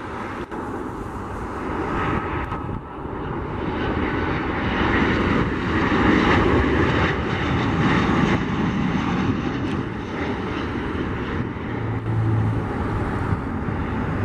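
Boeing 737 jet airliner on final approach, its engine noise building as it comes closer and peaking about six seconds in, then staying loud. Near the end a low steady drone joins in.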